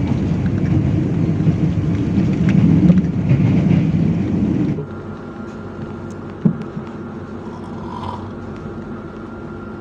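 Running noise inside a moving passenger train carriage: a loud, steady rumble of wheels on rails. About five seconds in it drops abruptly to a quieter steady hum with a faint high tone, and there is one short click.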